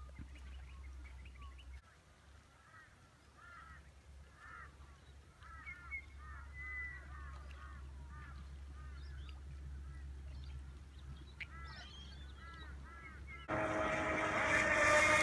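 Waterfowl on the lake calling, a long run of short repeated honking calls. About thirteen and a half seconds in, a louder steady mechanical whine with a rush of noise suddenly takes over.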